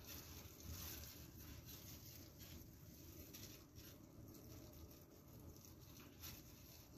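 Faint, irregular taps of a knife slicing through a nori-wrapped sushi roll onto a wooden cutting board, the clearest about a second in and near the end, over near silence.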